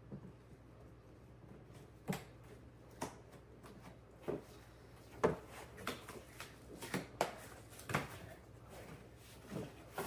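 Product box and packaging being handled and opened: about ten scattered knocks, taps and light rustles at irregular intervals.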